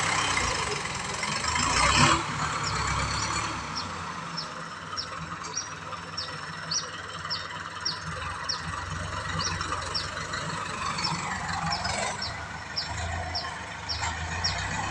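New Holland 6640 tractor engine running while ploughing, with a short high squeak repeating about twice a second. A brief noisy swell comes about two seconds in.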